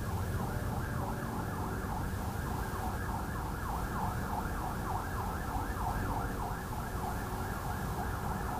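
An emergency-vehicle siren in a fast yelp: quick falling sweeps repeating about three or four times a second, over a steady low rumble.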